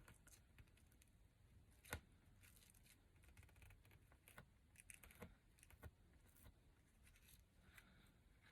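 Faint rustling of ribbon and paper being handled as a bow is tied on a paper box, with soft scattered clicks and one sharper tap about two seconds in.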